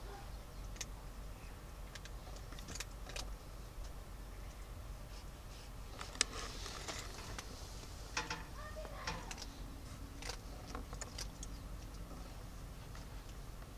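Kittens moving about in a plastic pet carrier: scattered light clicks and scratches of paws and claws on blanket, plastic and a rope basket, with one sharper click about six seconds in.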